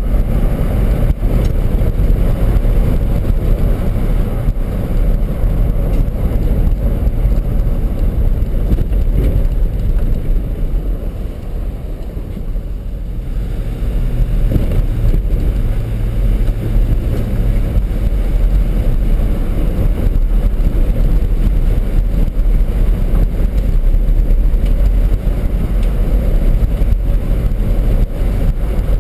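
Steady low rumble of a 2006 Ford F-150 driving on a dirt road, heard from inside the cab: engine and tyre noise together. It eases off for a few seconds about halfway through, then comes back up.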